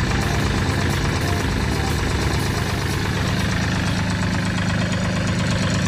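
Farm tractor's diesel engine running steadily as it works a muddy rice paddy, heard from the operator's seat.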